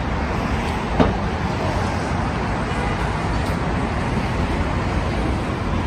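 Steady city street traffic noise, with a single sharp knock about a second in.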